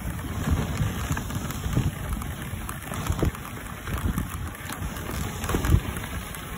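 Wind buffeting a phone microphone on a moving dog sled: an uneven low rumble that swells in gusts, over the hiss of the sled's runners sliding on snow.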